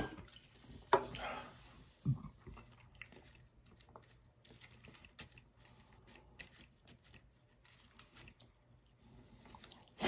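An aluminium soda can set down on a table with a sharp knock about a second in, followed by a softer thud, then faint, scattered ticks and rustles of fingertips picking crumbs off a paper plate.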